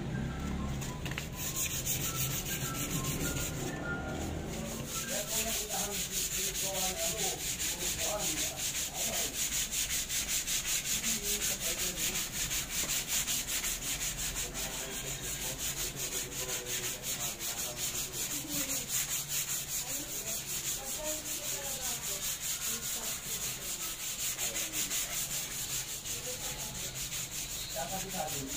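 Sandpaper rubbed by hand over a varnished wooden tabletop in steady, quick back-and-forth strokes.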